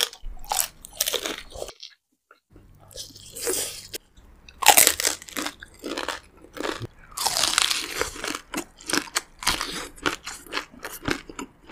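Close-miked mukbang eating sounds: loud, crisp crunching bites into crispy pork skin, followed by chewing. They come in quick clusters, with a short silent break about two seconds in.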